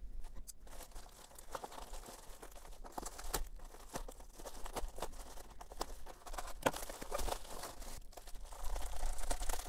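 A plastic bubble mailer being torn open by hand and its bubble-wrapped contents pulled out: irregular crinkling, rustling and tearing of plastic, busier near the end.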